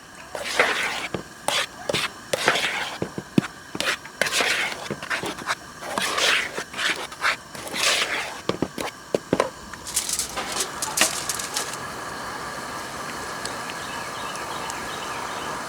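Kitchen handling sounds: irregular scraping and knocking of utensils and bowls while flour is mixed. About ten seconds in, these give way to a steady even hiss.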